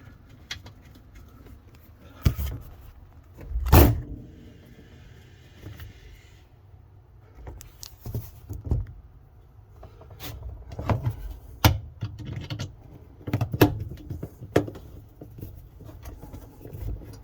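Scattered clicks and knocks of hard plastic dishwasher parts being handled and refitted, with a brief scraping sound between about four and six seconds in.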